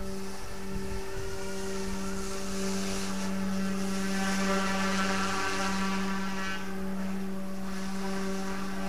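OMP M2 micro RC helicopter hovering at a governed head speed, its twin direct-drive brushless motors and rotors giving a steady hum with a whine above it that wavers slightly. The owner believes the direct-drive tail motor, on BLHeli_32 ESCs, can be heard working a little harder in this setup.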